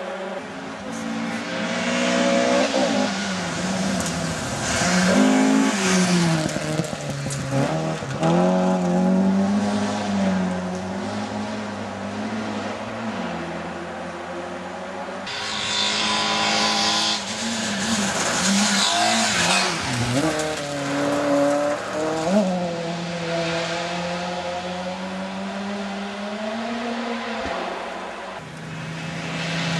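Subaru Impreza rally car's flat-four engine revving hard and dropping back again and again through gear changes as it drives the stage out of sight, the pitch rising and falling and the level swelling as it comes closer. A harsh rushing noise joins it for about two seconds in the middle.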